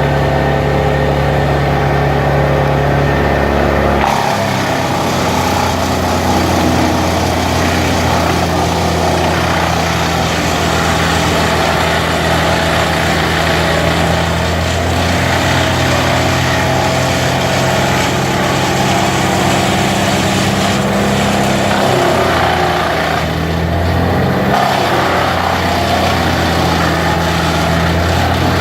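Vermeer BC1000XL wood chipper running loud and steady. Its engine note changes about four seconds in and wavers again around twenty-two to twenty-five seconds in.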